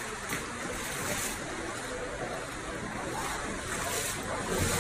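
Ankle-deep floodwater sloshing and rushing across a tiled floor: a steady wash of water noise with a few louder splashing swishes.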